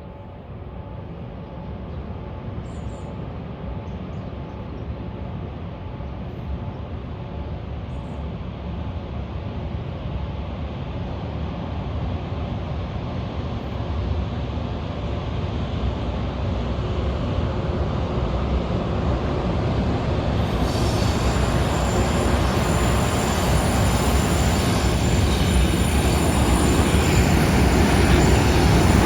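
Yamanote Line electric train drawing closer, its rumble growing steadily louder, with a high steady wheel squeal joining in about two-thirds of the way through.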